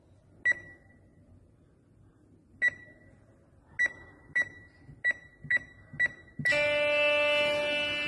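Electronic door-entry keypad beeping once for each key pressed, seven short high beeps as an access code is entered. Near the end the electric door release buzzes steadily as the lock opens.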